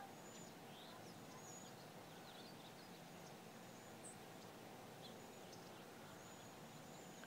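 Near silence: a faint steady background hiss with scattered, faint, high-pitched bird chirps.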